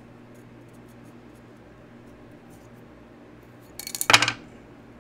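Folding-knife parts handled at close range: a dyed handle scale and the steel knife frame clicking and rattling against each other as the scale is fitted. Faint small taps of handling, then a short rapid burst of clicks about four seconds in.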